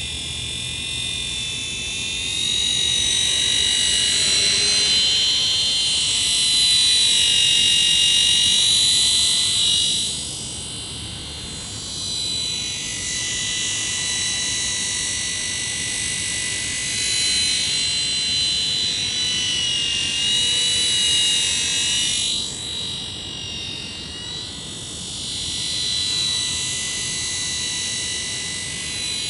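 Helimax Black Hawk RC helicopter in flight: a high-pitched whine from its motor and rotors that wavers in pitch and swells and fades as it manoeuvres, dropping away briefly twice.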